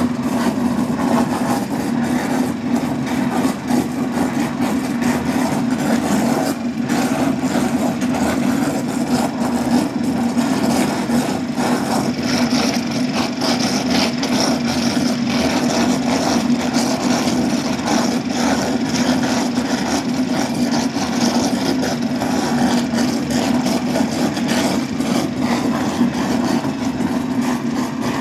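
Electric butter churn running with a steady motor hum as it churns cream into butter; a higher hiss joins about twelve seconds in.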